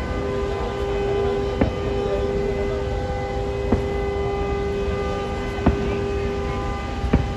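Fireworks going off: four sharp bangs about two seconds apart over a steady rumble, with a continuous droning tone held throughout.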